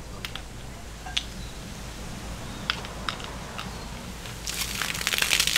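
A few small plastic clicks as a 1-litre Diet Pepsi bottle is readied with Mentos, then, about four and a half seconds in, a crackling fizz that swells quickly as the Mentos set the diet soda foaming up.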